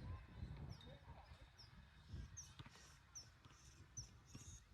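Faint outdoor quiet with a bird's short, high chirps repeated every half second to second, over faint low thumps and rumble.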